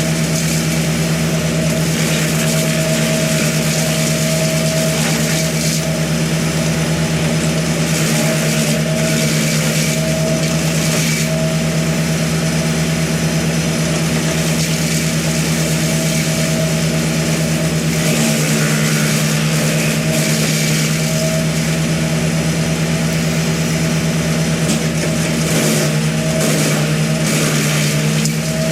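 Small petrol engine running steadily at a constant high speed, its pitch holding the same throughout.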